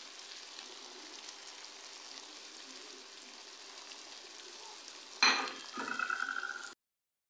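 Tomato-onion masala with freshly added ground spices sizzling steadily in hot oil in a karahi. About five seconds in, a steel spoon scrapes loudly against the pan with a brief squeak as stirring begins, and then the sound cuts off suddenly.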